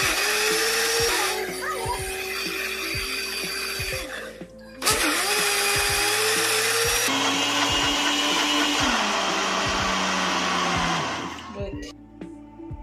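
Electric mixer grinder running loud, grinding soaked dal into a batter paste. It stops for a moment about four and a half seconds in, is switched on again, and winds down near the end.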